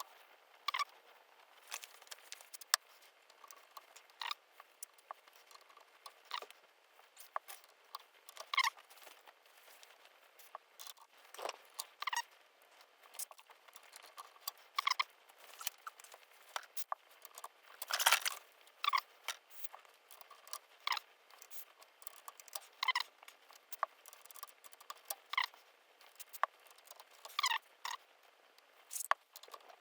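Irregular small clicks, taps and short scrapes of hand tools working on the metal chassis of a 1960s tube television.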